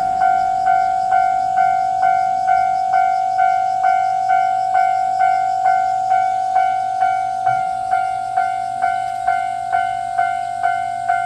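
Japanese railway level-crossing warning bell ringing, a clanging tone repeating steadily a little over twice a second, which signals that the crossing is closed.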